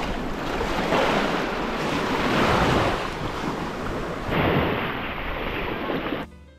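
Sea waves washing in and breaking over a sandy shore, a steady rush that swells and eases. The sound drops away shortly before the end.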